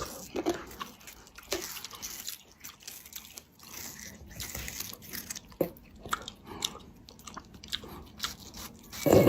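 Close, moist crunching and chewing: a cat eating, with many short, irregular crunches. A louder sound starts near the end.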